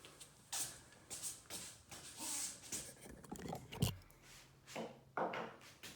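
Handling noise: scattered clicks and rustles with one sharper knock about four seconds in, as the camera is carried over and a metal straight edge is set against the miter saw's fence.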